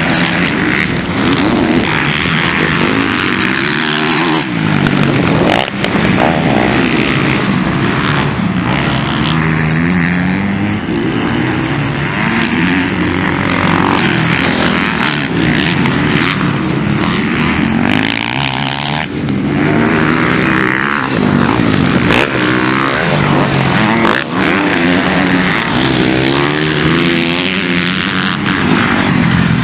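Motocross bikes racing, their engines revving up and falling away again and again as the riders accelerate and shift through the track.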